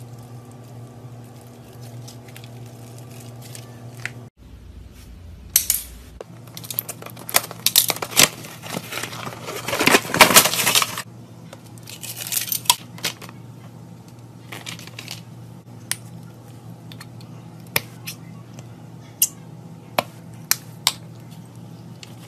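Slime being handled in a glass bowl, with sticky clicks and crackles that come thick from about five seconds in, loudest around ten seconds, then thin out to scattered single clicks. A low steady hum under the first four seconds stops abruptly.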